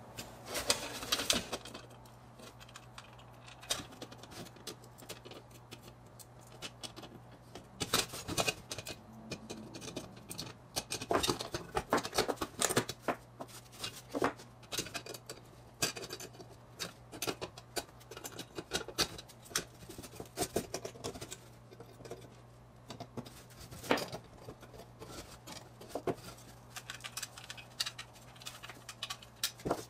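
Clicks, scrapes and light metallic taps of a pressed-steel Mini Tonka stake truck being taken apart by hand with pliers, coming in irregular clusters over a steady low hum.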